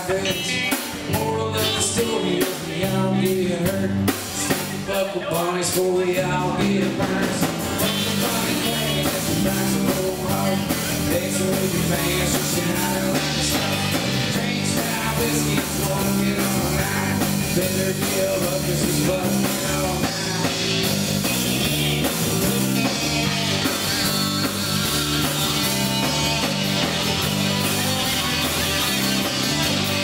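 Live Texas country-rock band playing loudly: electric guitars, acoustic guitar, bass guitar and drum kit, with a repeating bass line under the drums.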